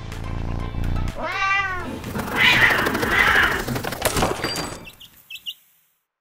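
A cat's meow sound effect, one rising-and-falling call about a second and a half in, over low background music. Then comes a loud rushing noise, a knock about four seconds in, and a few short high chirps before the sound dies away.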